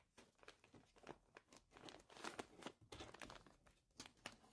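Tear-away embroidery stabilizer crinkling and rustling in quick, irregular crackles as it is handled and pressed into an embroidery hoop.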